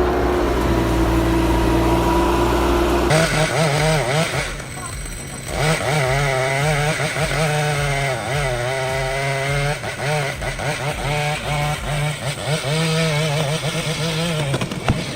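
A machine engine hums steadily at one pitch; about three seconds in, a chainsaw engine takes over, running with its pitch wavering up and down.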